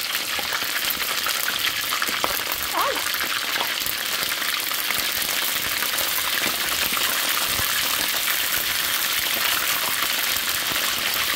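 Chicken wings frying in hot oil: a steady, dense sizzle with fine crackling throughout.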